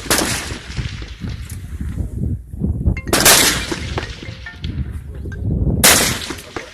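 300 m prone rifles firing: three loud shots about three seconds apart, each with a ringing echo trailing off after it.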